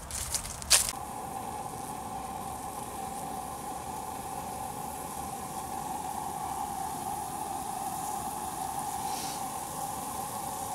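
Small brass camp stove burning steadily under a frying pan of diced pancetta, a constant hiss with a steady hum. It starts right after a sharp clatter about a second in.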